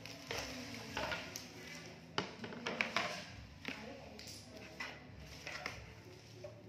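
Toy alphabet letters clicking and knocking as they are picked up and set down on a tiled floor and a wooden puzzle board: a string of light, scattered taps.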